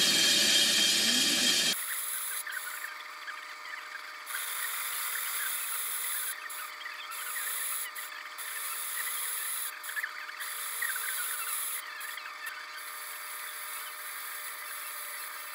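Myford ML7 lathe turning the rim of a cast iron flywheel: a steady machine whine with scratchy cutting noise from the tool on the iron. The sound turns thinner and quieter about two seconds in.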